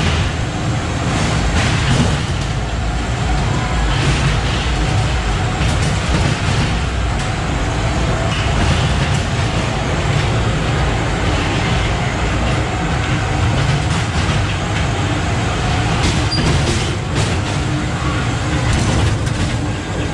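Ghost train car rumbling and clattering along its track, a steady loud rumble with occasional knocks.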